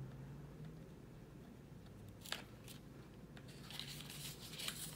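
Faint rustling of stiff paper panels and embroidery floss being drawn through punched holes, with a few soft ticks a little past two seconds in and a longer rustle near the end.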